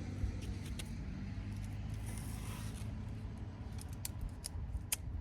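A motor vehicle's engine running with a steady low hum. A brief scrape comes about two seconds in, and a few sharp clicks come near the end, from small handling noises close by.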